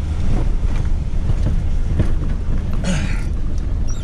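Pickup truck (bakkie) climbing a steep dirt track: a steady low engine-and-road rumble with a few knocks from the rough ground and a short rasp about three seconds in.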